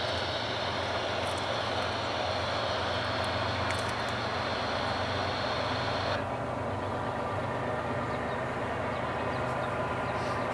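Steady low engine rumble with a hiss above it; the hiss cuts off suddenly about six seconds in, leaving the rumble.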